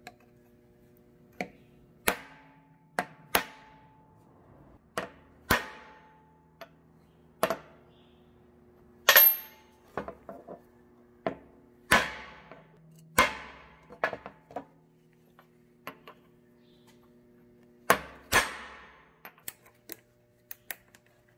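Hammer blows on steel, about twenty sharp strikes with short ringing decays at an uneven pace, as new U-joints are knocked into a 2003 Toyota Tundra driveshaft yoke.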